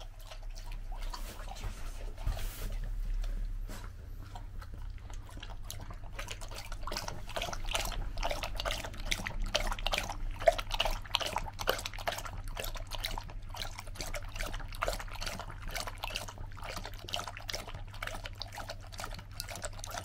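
A golden retriever lapping water, a fast, irregular run of wet laps that starts a few seconds in and keeps going.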